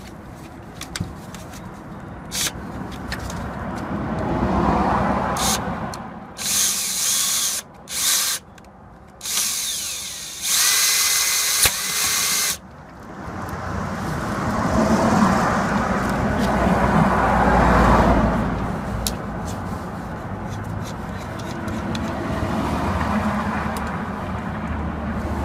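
Bosch cordless drill-driver running a wheel bolt into a car's hub, started and stopped in several short bursts as the bolt tightens, until the screwdriver bit's shank snaps off. A longer, steadier low noise fills the second half.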